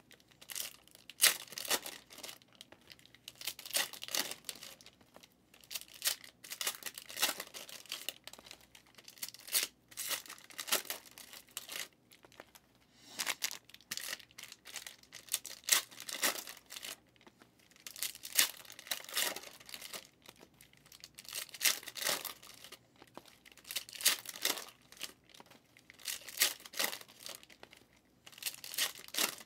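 Packs of 2023 Panini Rookies & Stars football cards being torn open and their wrappers crinkled, in short crackly bursts every second or two, with the cards being handled.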